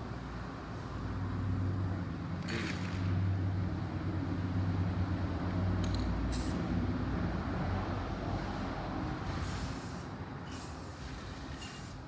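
Low engine drone of a passing vehicle, swelling and then fading away, with a few short hisses along the way.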